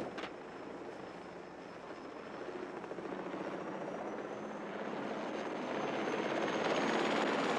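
Helicopter approaching, its rotor noise and turbine whine growing steadily louder, with the whine slowly rising in pitch. A brief sharp sound comes right at the start.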